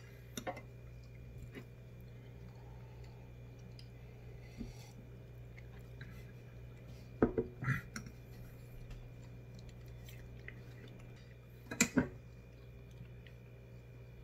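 Metal cutlery clinking and scraping on a ceramic plate while cutting pancakes, a few sharp clinks in two clusters about seven and twelve seconds in, over a faint steady hum.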